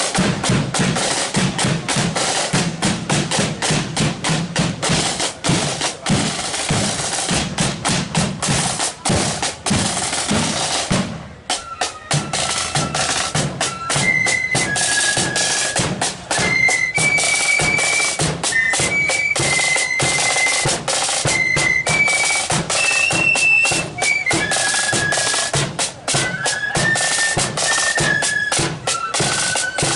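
Marching flute band: snare and bass drums beat a march rhythm alone at first, then after a short break about 11 seconds in, the flutes come in playing a melody over the drums.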